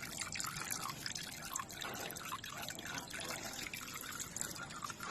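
An irregular patter of small, wet, drip-like sounds, a few each second, over a faint background hiss.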